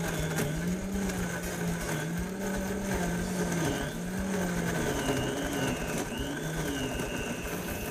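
High-powered countertop blender running at speed, churning a thick shake of fruit, oats and seeds; its motor hum wavers up and down in pitch as the mixture moves through the blades.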